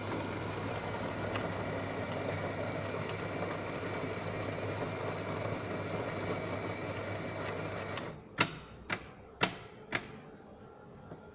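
Automatic coffee machine running its latte macchiato programme: a steady mechanical whirr with a low hum for about eight seconds that stops, then four sharp clicks about half a second apart.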